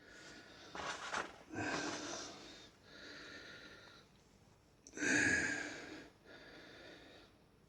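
A man breathing heavily through his nose close to the microphone: a series of noisy exhales, the loudest about five seconds in.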